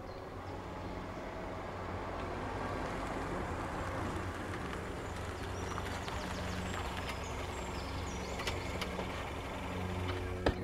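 A road vehicle's engine running steadily and slowly growing louder, with a few birds chirping. There is a sharp knock near the end.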